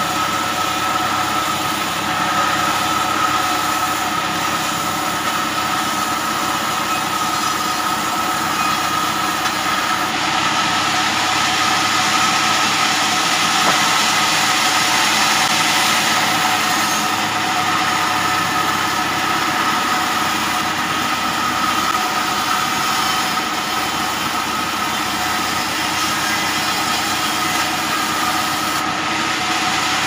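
Vertical band sawmill running, its blade ripping lengthwise through an acacia log: a steady machine whine with several held tones, and a cutting hiss that grows louder about ten seconds in and eases again a few seconds later.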